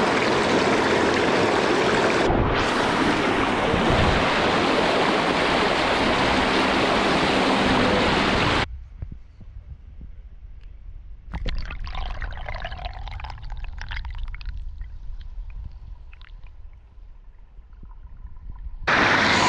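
Rushing river water splashing over a shallow rapid, close to the camera. About nine seconds in, the sound cuts off suddenly to a muffled underwater hush with bubbling and crackling, then turns loud again just at the end as the camera comes back above the water.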